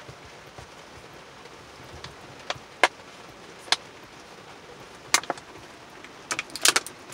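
Heavy rain hissing steadily on a truck, heard from inside the cab. Scattered sharp clicks and crackles cut through it, with a denser cluster near the end as a plastic water bottle is handled and drunk from.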